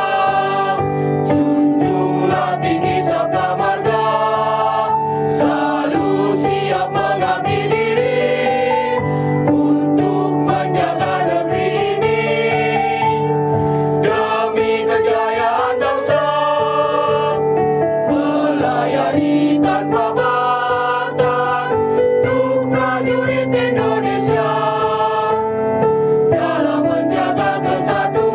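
Mixed choir of women's and men's voices singing a march-style anthem in parts, with held notes and phrase breaks, accompanied by an electronic keyboard.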